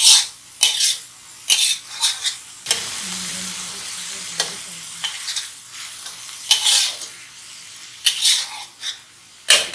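Metal wok spatula scraping and tossing chicken and vegetables around a steel wok, in sharp strokes every second or two. Under the strokes the food keeps a steady sizzle as it stir-fries.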